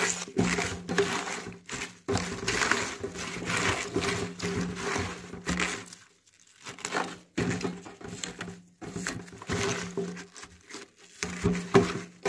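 A gloved hand tossing and squeezing chopped cabbage and green onions with salt on a stainless-steel tray: irregular bursts of wet crunching and rustling of the leaves as they are worked to wilt. There is a short pause about six seconds in, and a faint steady hum underneath.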